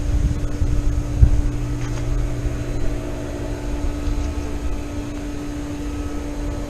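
Steady low mechanical hum with a constant tone, like a motor or fan running, with a low rumble early on and a single dull thump about a second in.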